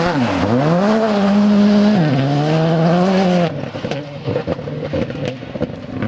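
Škoda Fabia R5 rally car's turbocharged four-cylinder engine accelerating hard, its pitch climbing, stepping down at an upshift about two seconds in, then climbing again. About three and a half seconds in the engine sound drops off sharply, leaving quieter scattered clicks.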